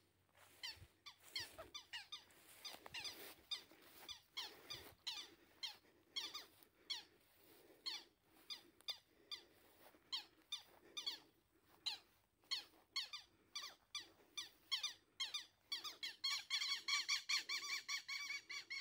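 Faint, rapid high-pitched chirping calls from small animals at a pond, each chirp dropping in pitch, a few a second. They thicken into a denser, faster pulsing series near the end.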